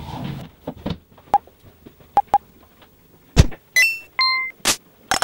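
Scattered sharp clicks and knocks of dry kibble and hard plastic as a cat works at a plastic cat-food maze, with a louder knock about three and a half seconds in. Just after it come a few short, clean high beeping tones, and another knock near the end.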